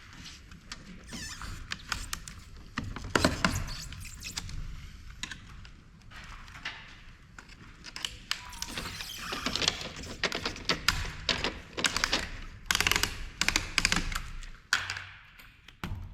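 Irregular clicks, taps and knocks of hand tools and metal and plastic parts being handled while an LCD monitor is taken apart.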